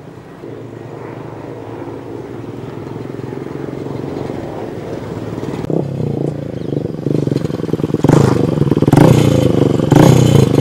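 Motorcycle engine approaching, getting steadily louder, then running close by as the bike pulls up near the end.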